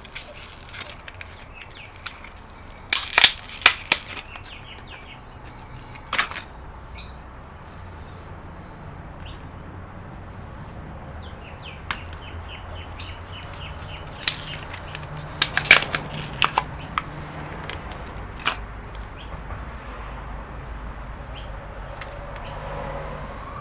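Scattered sharp clicks and taps from hands working on the laptop's DDR4 memory modules, over a low steady hum.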